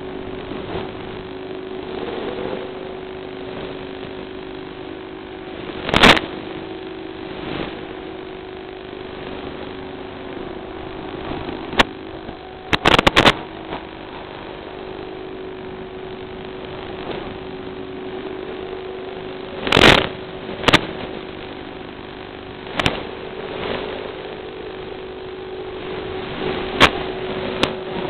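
Small FPV drone's electric motors buzzing steadily in flight, heard through the onboard recording, with sharp crackles of static breaking in at irregular moments, the loudest about six seconds in and near twenty seconds, typical of the analog video link breaking up.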